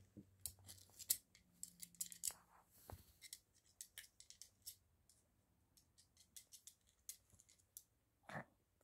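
Faint, irregular plastic clicks and taps from a Pomeranian nosing and pawing a small hard plastic toy ball across a quilt.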